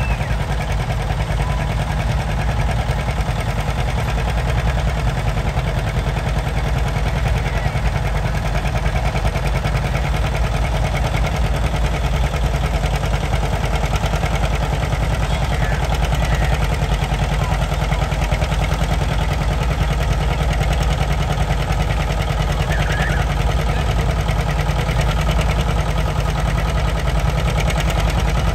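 Diesel farm tractor engine running steadily under heavy load as it pulls the weight sled in a low gear, a loud, even drone without much change in pitch.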